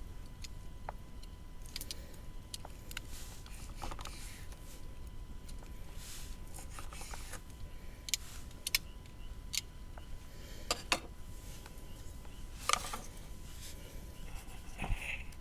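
Scattered light clicks and taps of small objects being handled, over a low steady rumble, with a few sharper knocks in the second half.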